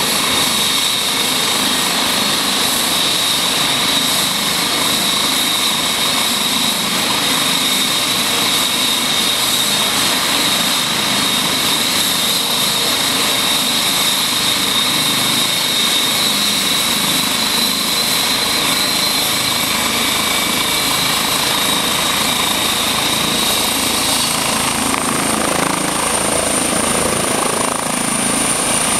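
Eurocopter EC135 air-ambulance helicopter running on the ground with its rotors turning: a steady, loud turbine whine over the rotor noise. In the last few seconds the whine rises in pitch as the helicopter powers up and lifts off.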